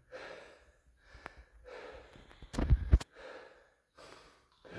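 A man breathing hard in short, heavy breaths, straining under a barbell of about 732 kg held across his shoulders. Near the middle come two sharp knocks about half a second apart, the loudest sounds.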